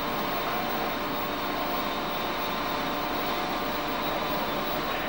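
Steady rush of wind and churned sea water between two ships steaming close alongside each other, with a faint steady hum running through it.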